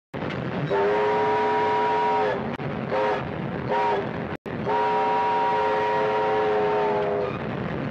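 Multi-note train whistle sounding a chord: one long blast, two short blasts, then after a brief cutout another long blast, over the steady rumble of a running train.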